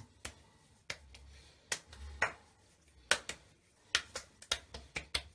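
Open palm slapping aftershave onto the face and neck: a run of sharp, wet skin slaps, spaced out at first and coming quicker near the end.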